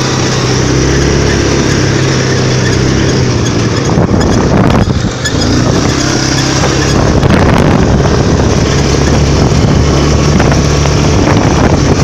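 Engine of a 400 cc automatic ATV running steadily under load while riding at speed, with wind buffeting the microphone. The engine note briefly eases off about five seconds in, then picks up again.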